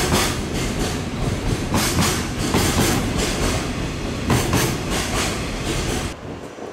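Freight train passing close by, its wagon wheels clattering over the rail joints in a steady rhythm. The clatter drops off suddenly about six seconds in as the end of the train goes by.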